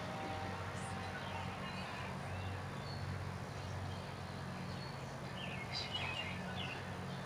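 Outdoor ambience: a steady low hum with faint bird chirps, clustered near the end.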